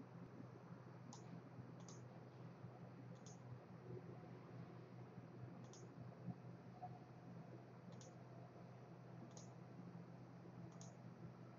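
Near silence with a low steady hum, broken by seven faint, short clicks a second or two apart as on-screen menu buttons are selected.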